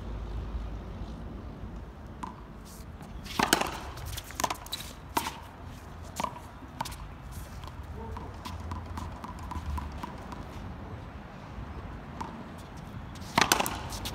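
Racquetball being played: sharp smacks of rackets hitting the hollow rubber ball and the ball slapping the concrete wall and court. A quick run of hits comes about three and a half seconds in, followed by a few single bounces, then another quick run of hits near the end.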